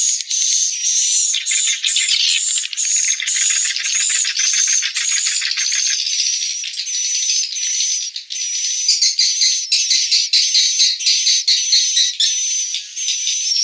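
Swiftlets (walet) twittering in a dense flock chorus: short high chirps repeating about twice a second over a fast rattling ticking, turning to quicker pulsed chirps about nine seconds in. It is an edited swiftlet-house roosting lure call (suara inap), built from a recording of swiftlets returning to roost at dusk and played to draw the birds in to stay.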